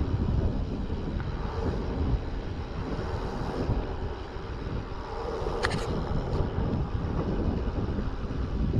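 Wind buffeting the microphone of a mountain bike being ridden on a paved road, a steady rough rushing with tyre noise on the asphalt underneath. A sharp click a little past halfway, and a smaller one just after.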